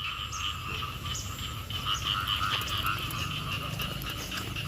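A chorus of frogs and small paddy frogs calling after rain: a steady, fast-pulsing chorus in two pitches, one lower and one higher.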